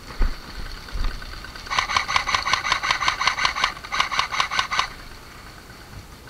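JG G3 airsoft electric gun firing on full auto: a rapid mechanical rattle of about two seconds, a brief break, then a second shorter burst. A few low thumps come just before, in the first second.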